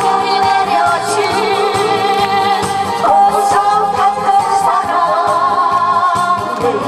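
Live singing through microphones over backing music with a beat; the held notes waver with vibrato.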